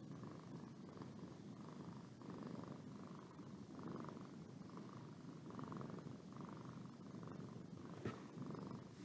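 Domestic cat purring continuously, the purr swelling and fading about once a second, with a single sharp click about eight seconds in.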